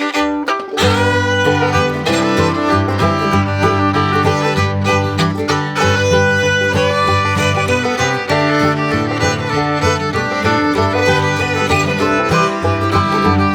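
Background music: an upbeat bluegrass-style tune led by fiddle, with guitar and banjo, over a steady bass line.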